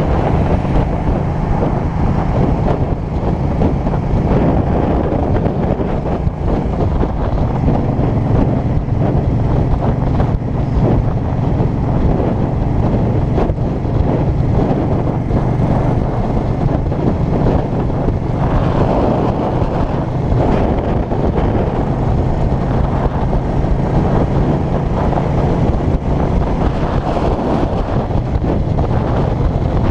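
Heavy wind noise on a GoPro in an open-sided skeleton housing, over the steady hum of a 2005 Suzuki Boulevard C50's 805 cc V-twin cruising at a constant speed.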